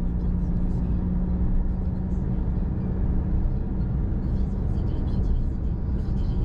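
Car driving along a road: a continuous low rumble of engine and tyres with a steady hum that fades about four seconds in.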